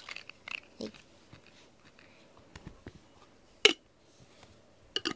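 A glass jar being handled: a single sharp tap about three and a half seconds in, then glass clinking and rattling that starts right at the end.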